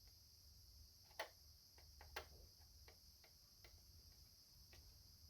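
Near silence with a few faint, irregular small clicks and taps, the two clearest about a second and two seconds in, from hands handling small parts and wiring.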